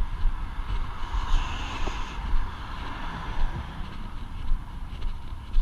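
Wind buffeting the microphone in uneven gusts, over the hiss of traffic on the road, which swells as a vehicle passes between about one and two and a half seconds in.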